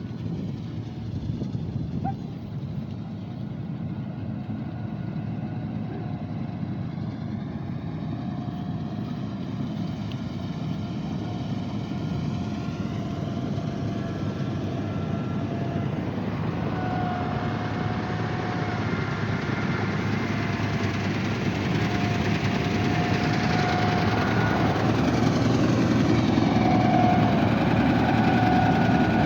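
An engine running steadily, with a wavering whine on top, gradually getting louder toward the end.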